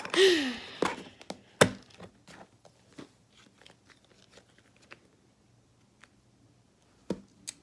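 Slime containers and putty being handled. There is a short rustling burst at the start, then a sharp knock about a second and a half in and scattered light clicks and taps, with a quiet stretch before two more clicks near the end.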